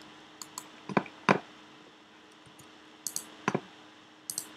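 Computer mouse and keyboard clicks, about eight short separate clicks with three louder, deeper ones near the first second and in the middle, over a faint steady hum.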